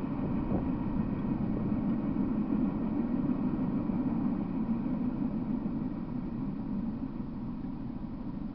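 Steady low rumble with a layer of hiss, easing off a little near the end.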